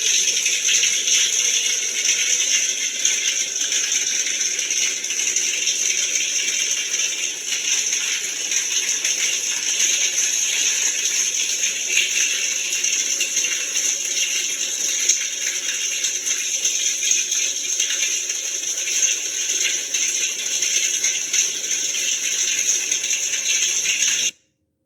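Water pouring from a square stainless-steel rainfall shower head, a steady dense hiss of many falling streams that cuts off suddenly near the end.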